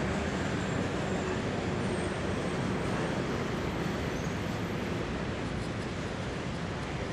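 Steady outdoor ambience: a constant, even rumble of road traffic.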